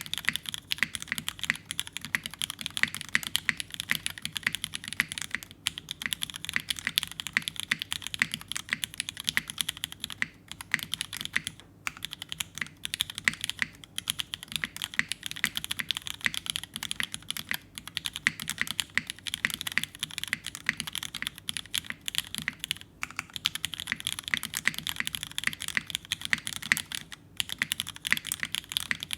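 Steady fast typing on a mechanical keyboard with thinly lubed vintage Cherry MX Black linear switches in a top-mounted aluminum plate, fitted with Cherry-profile keycaps and no foam dampening. Dense, even clacks, broken by a few brief pauses.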